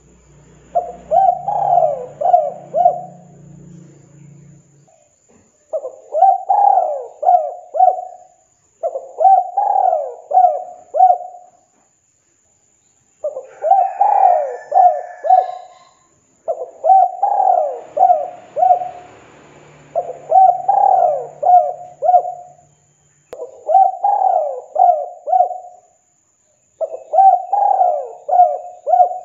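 Spotted dove cooing: eight phrases of four or five coos each, repeated every three to four seconds.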